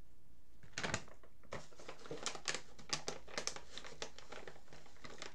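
A rough bump of handling close to the microphone about a second in, then irregular sharp clicks and crinkling rustles, a few a second, like hands working a keyboard or device right by the microphone.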